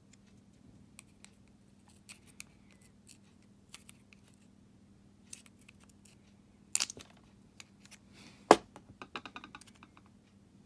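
Light clicking and scraping of a small flat-blade screwdriver prying at the circuit board and key blade inside a plastic car key fob shell. Two sharper clacks come about seven seconds in, and the loudest, a single sharp click, comes a moment later, followed by a quick run of small clicks.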